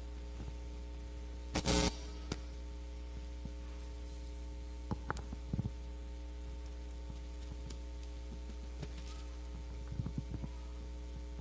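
Steady low electrical hum, with a short rustle about two seconds in and a few faint taps and clicks later on: the pages of a Bible being leafed through and handled.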